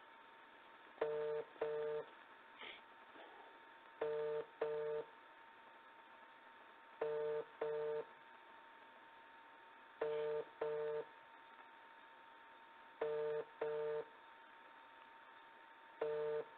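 Telephone ringback tone of an outgoing call ringing over the line, not yet answered: a double ring repeating about every three seconds, six times. A faint steady tone and hiss on the line sit underneath.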